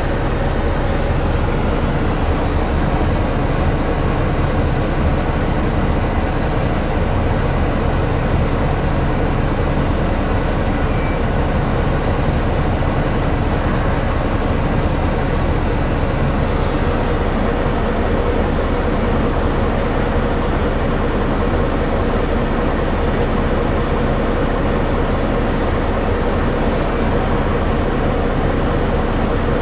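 Mercedes-Benz O408 bus under way, heard from inside the passenger cabin: steady diesel engine and road noise with a constant hum.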